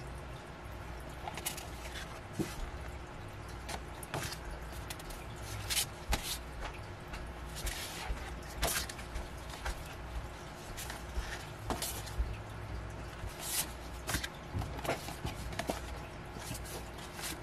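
Paper and card being handled: scattered light rustles, taps and small clicks as album pieces are picked up and set down, over a low steady hum.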